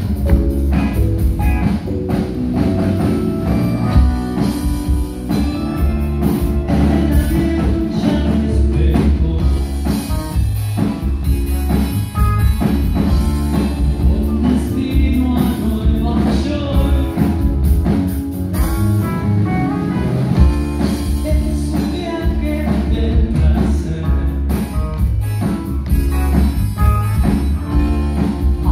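Live rock band playing: electric guitars, drum kit and keyboard, with a lead singer's voice over the band.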